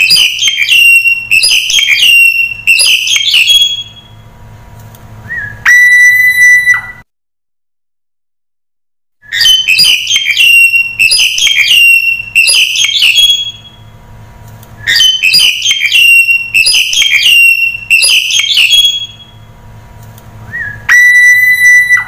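Black-collared starling calling: runs of rapid, harsh chattering notes, then a long, steady whistle of about a second that starts with a short upward slide and stops abruptly. The phrase repeats, with a two-second stretch of dead silence between repeats.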